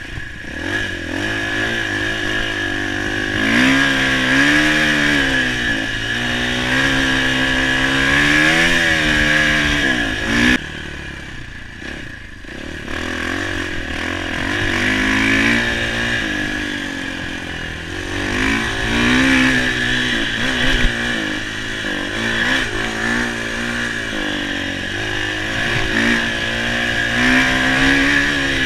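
Husqvarna enduro motorcycle engine revving up and down as it is ridden off-road, pitch rising and falling repeatedly through the gears, with the throttle eased off for a couple of seconds about a third of the way through.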